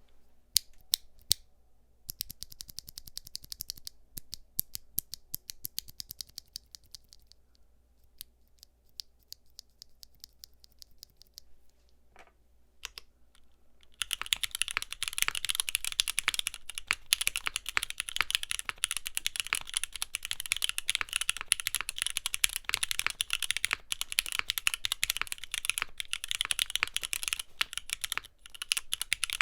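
Mechanical keyboard fitted with Gateron Khonsu full-POM rail-bottom-out switches being typed on. Scattered single keystrokes and short quick runs come first, then fast continuous typing from about halfway through.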